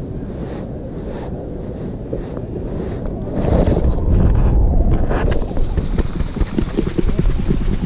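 Wind buffeting the microphone with a low rumble, growing louder about three and a half seconds in, with a few faint knocks.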